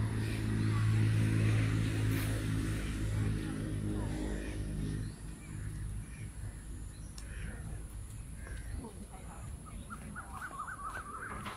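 A steady low motor hum dominates for about the first five seconds, then fades, while birds call on and off. Near the end comes a quick run of short rising-and-falling bird notes.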